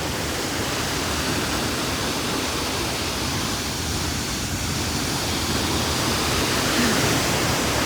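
Steady rushing roar of a waterfall, an even wash of noise without distinct events.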